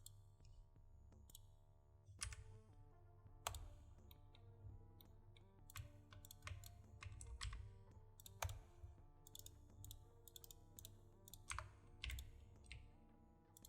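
Computer keyboard keys tapped and clicked at irregular moments, a dozen or more sharp clicks, over faint background music.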